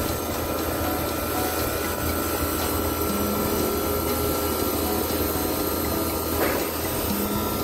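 Ice machine's refrigeration compressor running under test, a steady mechanical hum with a thin steady whine above it.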